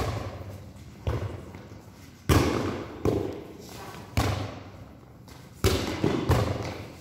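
Volleyball being hit back and forth in a rally: about seven sharp slaps of hands and forearms on the ball, roughly one a second, each echoing briefly in a large covered court.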